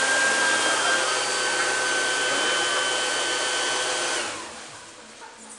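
A loud electric blower motor, like a shop vacuum or hair dryer, running with an even whoosh and a faint steady whine, then shutting off and dying away a little over four seconds in.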